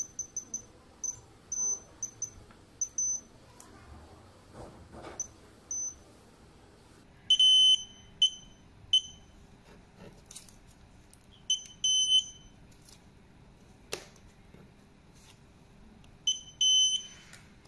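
Timmy TFS50W fingerprint and card access-control keypad beeping: a run of short, high-pitched key-press beeps, then from about seven seconds in a lower, slightly longer beep, sometimes in quick pairs, as it responds to input and cards. A few light clicks and taps of handling come between the beeps.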